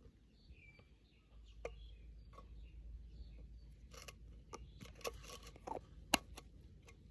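Irregular clicks, taps and light scraping from hands working with small objects, the sharpest tap about six seconds in, with faint bird chirps behind.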